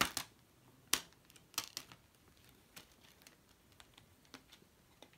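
Clear plastic multi-disc Blu-ray case being handled: sharp plastic snaps and clicks as it is opened and discs are pressed off their centre hubs. The loudest snaps come at the start and about a second in, followed by a quick cluster and then lighter ticks.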